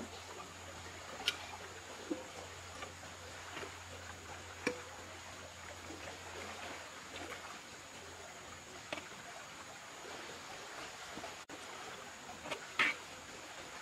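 Sparse light clicks and taps of a utensil against a ceramic plate and a clay pot as pieces of cooked chicken are lifted out and served, the strongest near the end, over a faint steady high hiss.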